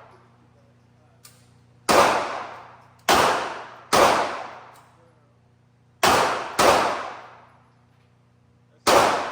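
Six gunshots at a shooting range, fired irregularly: one about two seconds in, two more close behind, a pair around six seconds, and one near the end. Each shot is sharp and is followed by a short echoing decay, over a steady low hum.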